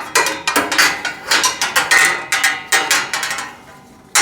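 Small metal support pieces and rack bracket parts being handled and fitted, an irregular run of sharp clacks and rattles that eases off about three seconds in before one last knock at the end.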